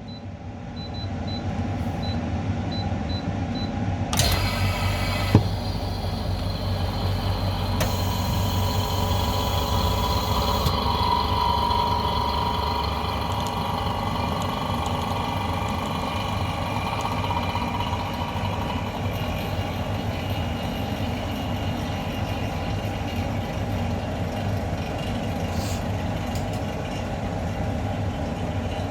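A small machine's electric motor running steadily, with a low hum and a high whine, and two sharp clicks about four and five seconds in.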